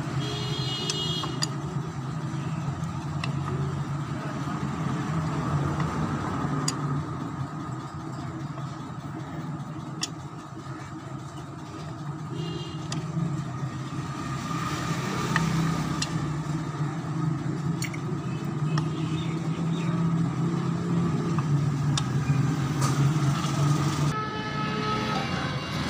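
Steady low engine hum of running vehicles. Occasional sharp metallic clicks come from a screwdriver working the cover bolts of a CNG kit pressure regulator.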